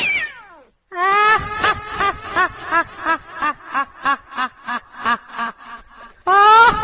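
High-pitched cackling ghost laugh sound effect: a falling shriek dies away, then a rhythmic 'ha-ha-ha' cackle of about three beats a second slowly fades. It starts up again loudly near the end.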